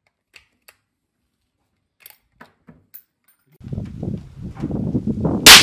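A few faint clicks of rifle handling, then a low rumbling noise sets in, and near the end a single sharp, loud crack of a .308 Winchester rifle shot.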